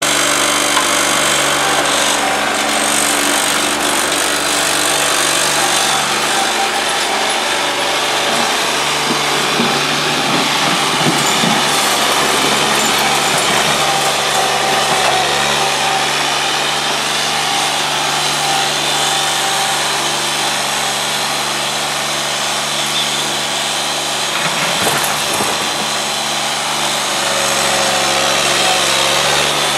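Bobcat 463 skid-steer loader's diesel engine running steadily at working revs while the loader moves soil and rocks.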